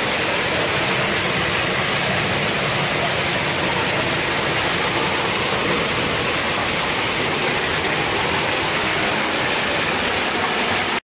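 Steady rushing of running water with no pauses or changes, cutting off abruptly at the end.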